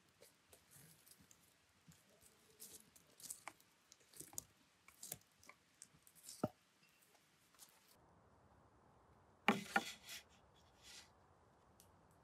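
Wood campfire crackling quietly with irregular sharp snaps and pops. About two-thirds through, the fire stops and there is a brief, louder clatter of something set down on a wooden table, followed by a couple of faint clicks.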